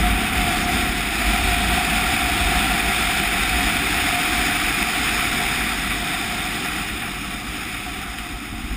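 KTM 990 Adventure's V-twin engine running steadily while riding, with wind and road noise over it; the sound eases off over the last few seconds.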